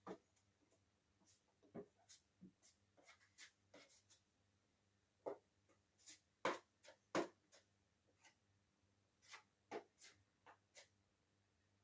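Faint, irregular clicks, taps and short scratchy scrapes, the loudest two a little past the middle.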